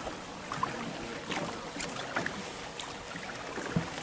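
Water lapping and splashing around a small rowed boat, with a few soft, irregular knocks from the oars against a steady background hiss.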